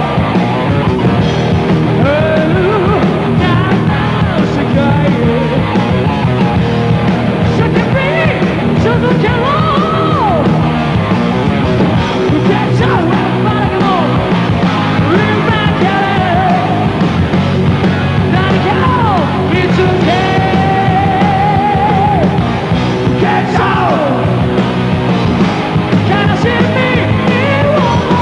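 Heavy metal band playing live: sung lead vocals over electric guitar, bass and drums.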